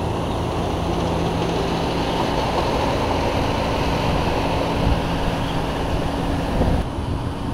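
Steady outdoor rumble and hiss with a low hum under it, dropping slightly near the end.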